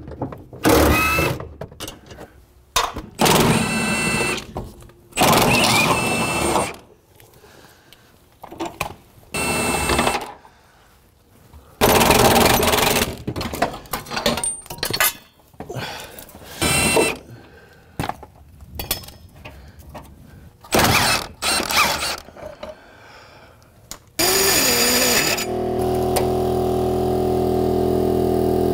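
Short, separate bursts of tool and metal-handling noise from work on a car's rear suspension, with quiet gaps between them. A couple of seconds before the end, a steady hum holding several even tones sets in.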